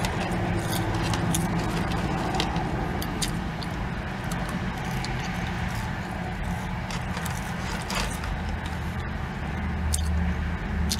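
A car's engine idling, heard from inside the cabin as a steady low hum. Small scattered clicks and rustles come from fries being eaten out of a paper tray.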